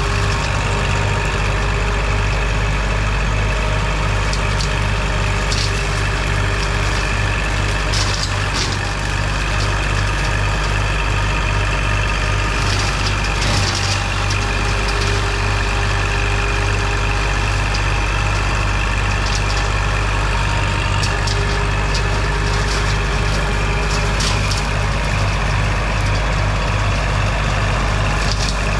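Kubota L2502 compact tractor's three-cylinder diesel engine running steadily with a low throb, with a few knocks and cracks over it.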